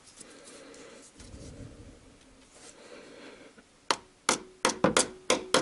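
A mallet tapping a knife blade driven into the oil-pan seam of a VAZ 2111 engine, to break the sealed pan free. Faint handling and rubbing at first, then from about four seconds in a quick run of sharp knocks, about four a second.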